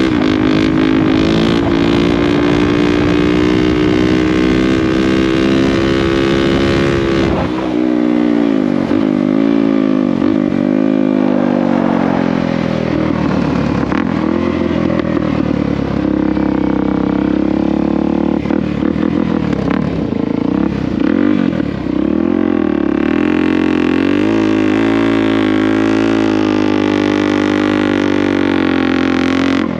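A motorcycle engine running under way. Its pitch holds steady for the first several seconds, then falls and rises several times as the throttle is rolled off and on, then settles into a steadier run.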